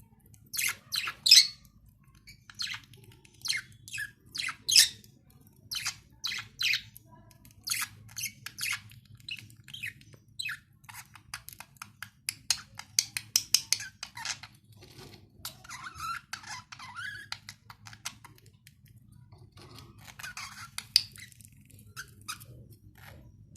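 Budgerigars chirping and squawking in rapid short, sharp calls, over a steady low hum.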